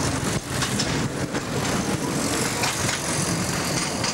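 Small narrow-gauge park train running, its engine a steady low hum with frequent clicks and clatter.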